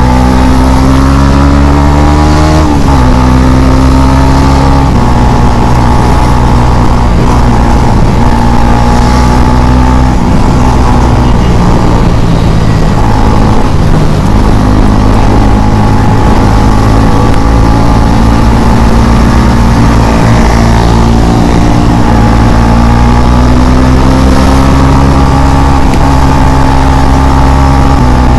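KTM Duke 250's single-cylinder engine pulling at riding speed. It rises in pitch through the first couple of seconds, drops at a gear change, then holds a mostly steady note with small throttle changes, over a steady rush of wind noise.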